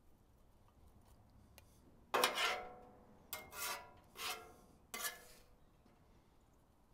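Metal spatula scraping across a steel Blackstone griddle top, four strokes about a second apart, as cooked toppings are scooped up.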